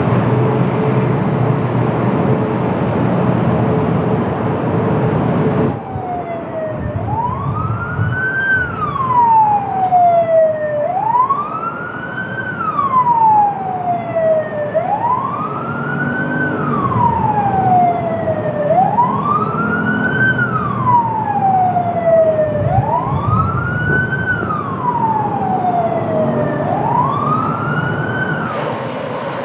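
A steady rushing noise with a low hum for about the first six seconds, then an emergency siren on a slow wail: six sweeps that each rise and fall over about four seconds.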